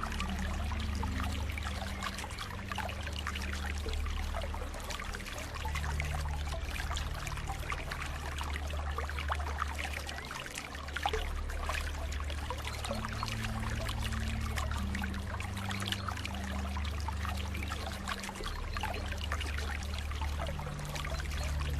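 Steady running water, trickling and splashing like a stream, over soft, low sustained notes of background music that change every few seconds.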